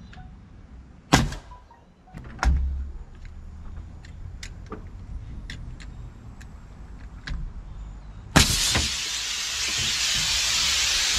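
Pneumatic framing nailer firing nails into lumber: a sharp shot about a second in and another with a heavy thud about two and a half seconds in. About eight seconds in there is a sharp hit, and then a steady, loud hiss of escaping compressed air begins.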